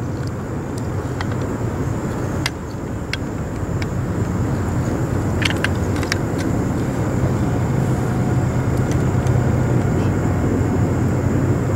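Steady low hum of a distant engine, growing a little louder through the middle, with a few faint clicks.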